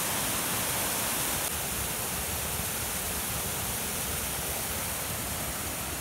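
Steady rush of water from a slide waterfall pouring down a bare rock face at high flow, easing slightly after about a second and a half.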